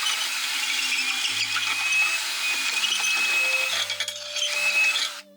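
Electric drill with a long wood bit boring the last of a broken wooden handle out of a shovel's metal socket, the bit grinding and giving a thin high squeal where it touches the metal. It stops just before the end.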